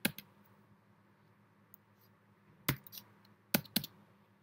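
A few computer keyboard keystrokes: one right at the start, then a short run of about five between two and a half and four seconds in, over a faint steady low hum.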